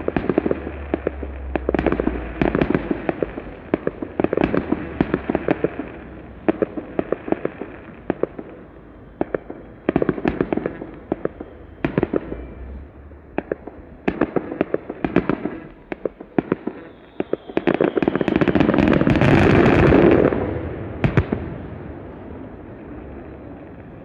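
Fireworks going off in quick succession, a stream of sharp bangs and crackles. Near the end they build into a dense, loudest barrage, then die away.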